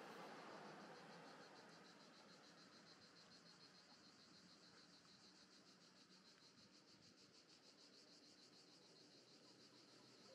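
Faint cicadas, a rapid pulsing shrill that grows steadier after the first couple of seconds, over the hiss of passing traffic that fades away early.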